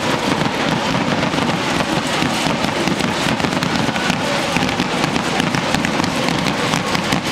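Stadium crowd din with a dense, continuous crackle of firecrackers going off in the stands.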